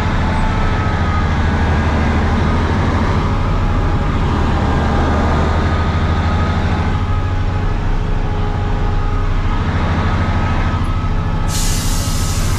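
Heavy diesel engine of a loaded hauling machine running steadily with a deep, even drone. A high hiss starts suddenly about eleven seconds in.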